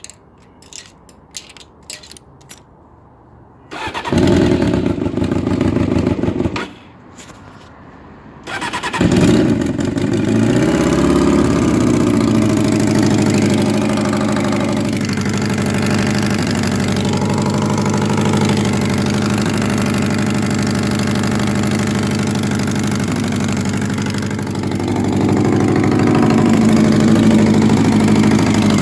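Honda CBR600F3 inline-four engine being started: a few small clicks, about three seconds of starter cranking that stops, then a second try about nine seconds in that catches and settles into a steady idle, rising a little near the end. It idles with a ticking that the owner places at the front of the exhaust manifold and says is not the tappets; he suspects the exhaust.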